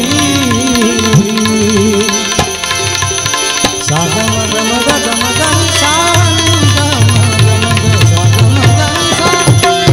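Instrumental passage of a Gujarati devotional bhajan: harmonium melody with tabla accompaniment, after a sung line that trails off in the first second.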